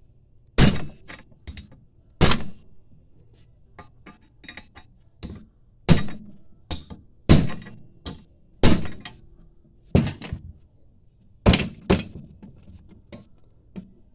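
About eight sharp hammer blows with a metallic ring, a second or two apart, with lighter taps between, driving a press-fit oil pump pickup tube into a Melling high-volume small-block Chevy oil pump held in a vise. The tube is tight and barely moves under the blows.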